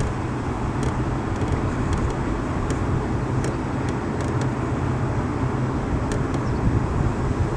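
A car engine running steadily: a low, even hum under a wash of noise, with a few faint ticks.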